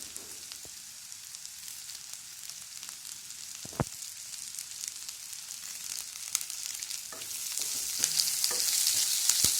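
Spices and onion frying in hot oil in a pan, a steady sizzle that grows louder about seven seconds in as more goes into the pan. There is one sharp knock about four seconds in and a few scrapes of a spoon stirring.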